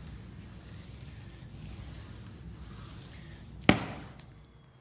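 Small paint roller rolling wet contact adhesive across a laminate sheet, a low steady rubbing. Near the end comes a single sharp knock, the loudest sound here, followed by quiet.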